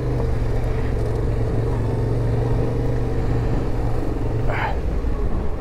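Yamaha Ténéré 700's parallel-twin engine running steadily at low speed, with wind noise.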